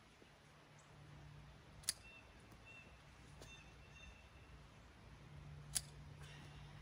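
Hand pruning shears snipping through thin peach-tree branches: two sharp snaps about four seconds apart.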